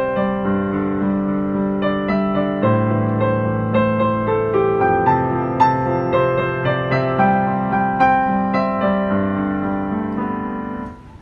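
Background piano music: sustained notes struck in a steady, regular rhythm.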